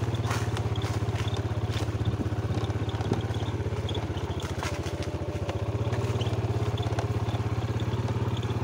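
Motorcycle engine running steadily at low speed, with clicks and knocks from the bike jolting over a rough dirt forest track, two sharper knocks about two and three seconds in.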